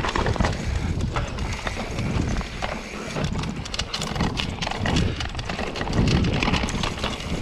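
Mountain bike riding fast down a rough dirt and rock trail: tyres rumbling over the ground under a steady low rumble, with frequent rattling knocks and clicks from the bike as it bounces over bumps.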